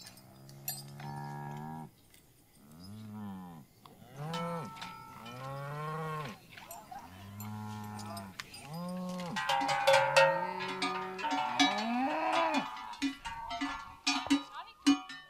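Cows mooing over and over, long calls that rise and fall in pitch and sometimes overlap. From about two-thirds of the way in, large cowbells clang densely as the cattle move, mixed with a few more moos.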